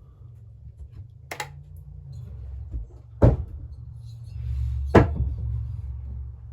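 Three sharp knocks as chainsaw parts or tools are handled on a workbench, the second and third the loudest, over a low rumble of handling.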